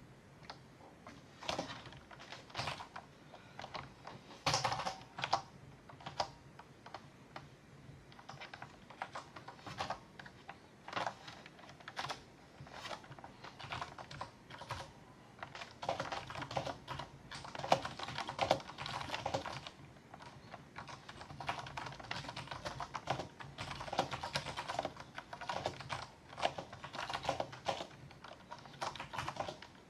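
Typing on a mechanical keyboard with linear Cherry MX Black switches: irregular runs of keystroke clacks, coming faster in flurries about halfway through and again later.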